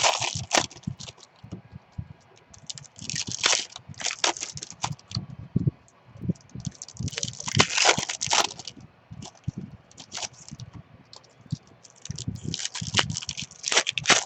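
Packs of baseball trading cards being torn open and the cards handled: repeated bursts of crinkling and tearing with small sharp clicks.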